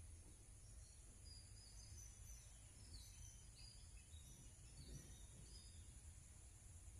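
Faint, high bird chirps, many short notes in quick succession, over a low background hiss and rumble.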